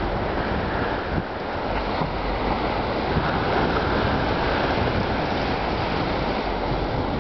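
Steady rushing noise of wind buffeting the microphone, mixed with the wash of Lake Michigan waves on the shore.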